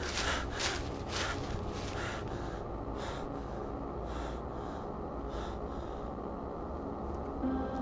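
A frightened man panting hard through an open mouth, quick gasping breaths about two or three a second that thin out after about two seconds, over a low rumble of handling or wind on the microphone.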